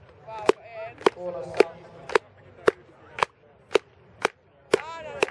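Spectators clapping in a steady rhythm, about two claps a second and quickening slightly, to spur a shot putter before his throw. Voices can be heard between the claps.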